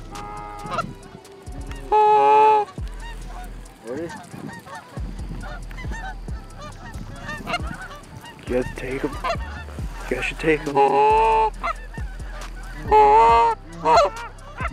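A flock of geese honking repeatedly overhead, many overlapping calls, the loudest coming in bursts about two seconds in and again near the end.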